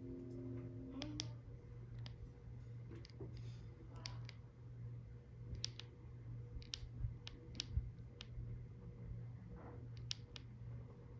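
Buttons being pressed: scattered, irregular clicks, a handful at a time, over a steady low hum.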